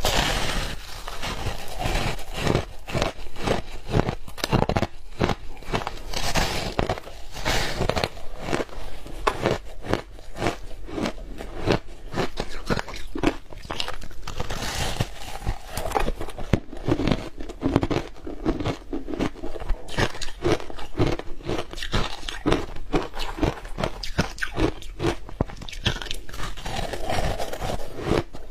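Close-up crunching and chewing of shaved ice dusted with matcha powder: dense, continuous crunches and crackles.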